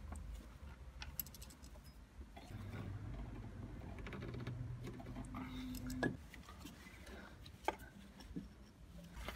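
Quiet, scattered clicks and light metal knocks as a new timing-belt tensioner pulley is handled and fitted back onto the engine, with two sharper ticks about six and eight seconds in.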